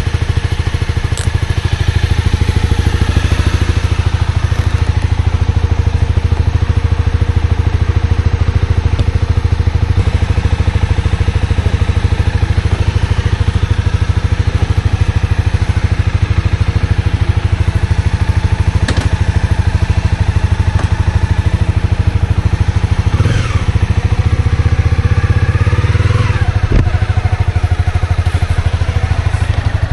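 Honda CB250R's single-cylinder engine running close to the microphone at a steady, even pitch.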